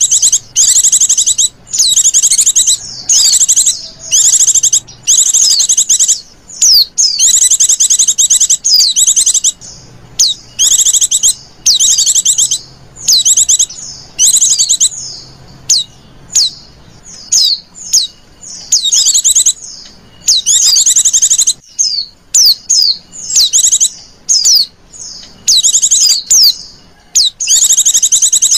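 White-eye (pleci) lure song: bursts of rapid, high chirping trills, each under a second or so, repeated over and over with short gaps.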